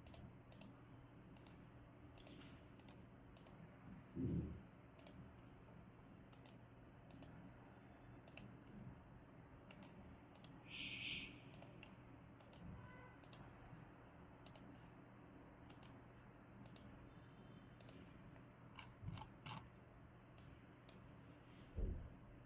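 Quiet, sparse light clicks, about one or two a second, over a steady low hum, with a soft low thump about four seconds in and again near the end.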